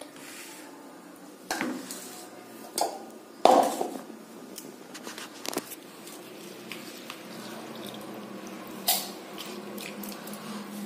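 Soaked chana dal being scooped by hand from a plastic strainer bowl and dropped into a stainless-steel mixer-grinder jar: a soft wet rustle of the grains with a few sharp clinks and knocks against the steel, the loudest about three and a half seconds in.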